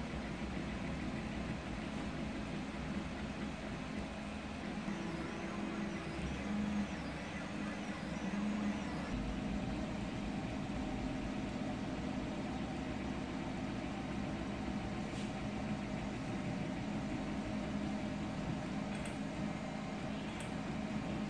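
Home-built CoreXY 3D printer running a print: stepper motors and belt drive whirring as the print head moves, over a steady fan hum. About five to nine seconds in, a high whine rises and falls several times in a row.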